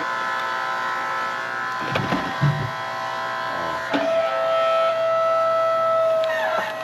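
Hydraulic log splitter running with a steady whine from its motor and pump, with knocks about two and four seconds in; the whine grows louder from about four seconds in.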